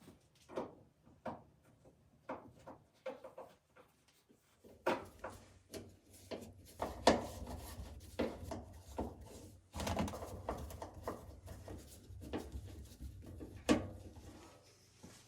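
Clicks and knocks of dryer panels and parts being handled and fitted, many in quick succession, with a low hum coming in about five seconds in and getting louder a couple of seconds later.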